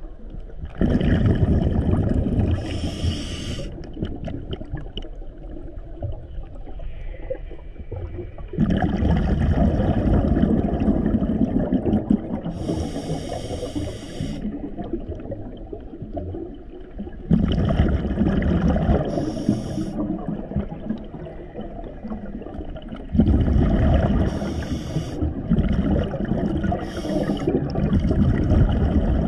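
Scuba diver breathing through a regulator underwater: four long bursts of exhaled bubbles rumbling, one every six to nine seconds, with hissing from the regulator.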